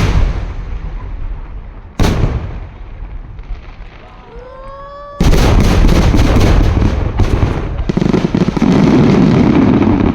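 Aerial fireworks bursting: a loud boom at the start and another about two seconds later, a rising whistle about four seconds in, then a rapid barrage of bangs that carries on to the end.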